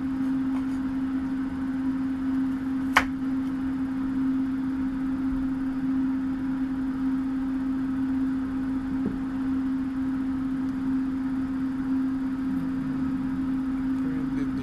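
A steady hum at one pitch, as from a running appliance motor or fan, over a low even hiss, with one sharp click about three seconds in.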